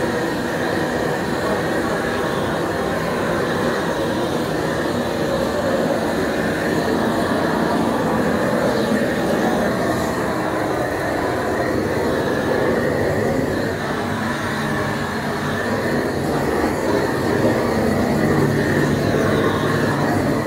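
A machine running steadily: a continuous noise with a low hum that stays at a constant level, unbroken by speech.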